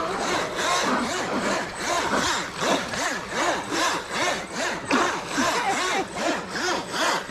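Radio-controlled electric racing boat running fast on rippled water: the motor's whine rises and falls in quick, even pulses a few times a second over a steady hiss of spray.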